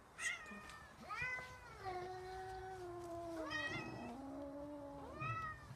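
Domestic cat meowing: a short meow, then two long, drawn-out meows that sink in pitch, and a short meow near the end.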